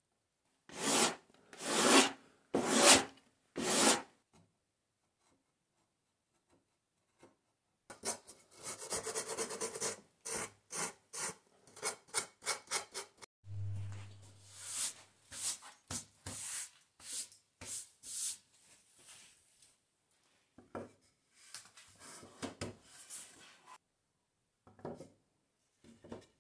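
Hand tools scraping and cutting wood: four loud strokes of a carving gouge into a small wooden knob, then long runs of quick rubbing, rasp-like strokes on wood. A brief low hum comes about halfway through.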